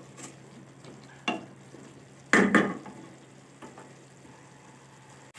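A spatula stirring and scraping a potato, pea and tomato masala in a frying pan as it is fried down, with a faint sizzle under a few short scrapes; the loudest scrape comes a little over two seconds in.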